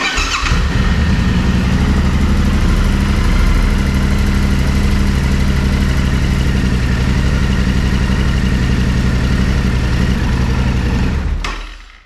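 Yamaha Ténéré 700's 689 cc parallel-twin engine starting and idling steadily for about eleven seconds, then switched off near the end. This is its first run after an oil and filter change, with fresh oil filling the new filter.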